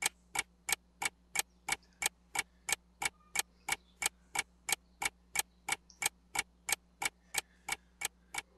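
Countdown timer sound effect: even clock-like ticking, about three sharp ticks a second.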